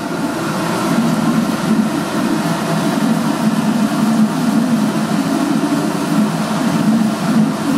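Inline duct fan running steadily, sucking air out of the vortex box through its single suction hole: an even rushing hum, building up over about the first second.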